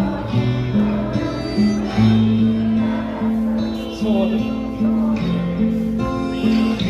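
Live pop ballad accompaniment: guitar and bass playing held chords that change every half second or so, in an instrumental passage with no clear vocal line.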